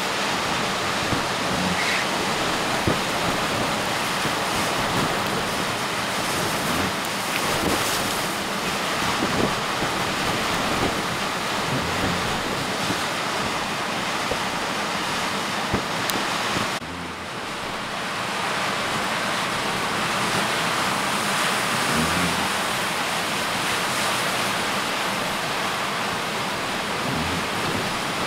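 Storm-force wind and heavy surf: a dense, steady rush of noise with low gusts buffeting the microphone. About 17 seconds in the sound drops abruptly and loses its hiss, then builds back up.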